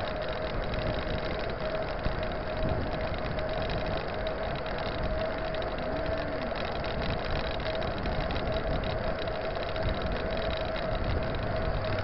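Riding noise from a mountain bike rolling along an asphalt road: wind buffeting the microphone and tyre noise, with a steady mid-pitched hum throughout.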